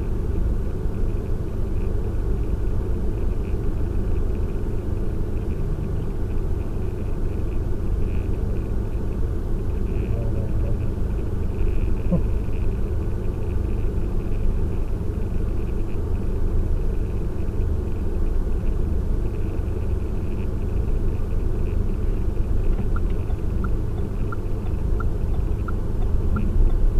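Steady low rumble of a car driving on the road, with a light regular ticking in the last few seconds.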